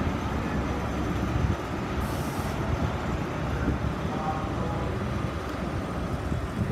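Diesel engine of a Class 43 HST power car running close by, a steady low rumble.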